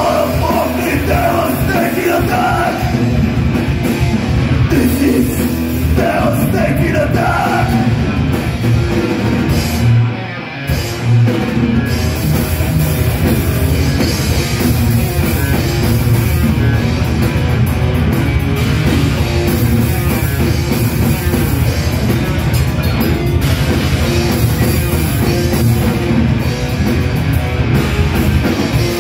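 A thrash metal band playing live: distorted electric guitars, bass and drum kit, loud and continuous, with a brief drop in loudness about ten seconds in.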